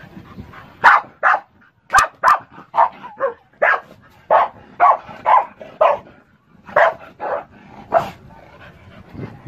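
Dog barking repeatedly: about fifteen short barks, roughly two a second, in a few runs with brief pauses between them.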